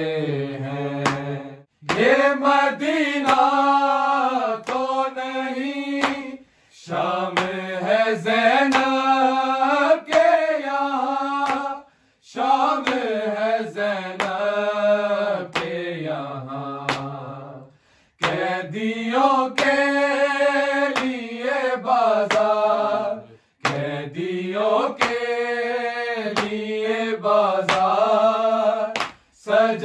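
Several men singing an Urdu noha (Muharram lament) together, unaccompanied, in long drawn-out phrases with short breaks for breath between them.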